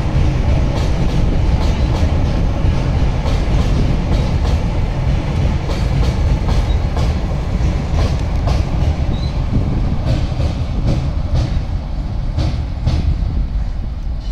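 Goods train of covered freight wagons rolling across a steel girder bridge: a heavy low rumble with repeated clicks of wheels over the rail joints. The brake van at the tail goes by partway through, and the sound drops slightly near the end as the train moves away.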